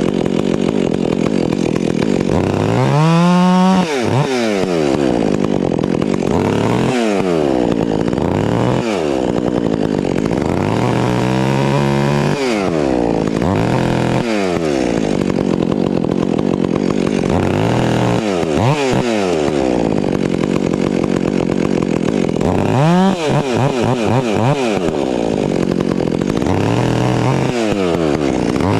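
Gas chainsaws cutting through trees and brush at high revs. The pitch dips and climbs back every couple of seconds as the throttle is eased and opened again, with one sharp rev-up that drops off suddenly about four seconds in.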